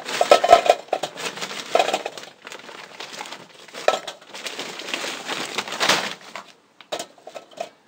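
Charcoal briquettes poured from a bag into a smoker's metal charcoal bowl, clattering and crunching against each other and the steel for about six seconds, then a few single knocks as briquettes are set in place by hand. This is the unlit charcoal ring being laid around a can for a minion-method slow burn.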